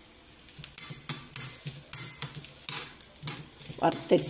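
A metal spoon scrapes and clinks against a small tempering pan at an irregular pace, starting about a second in, while crushed coconut and mustard seeds fry in it.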